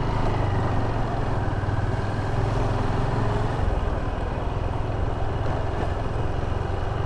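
Motorcycle engine running steadily at cruising speed, with road and wind noise.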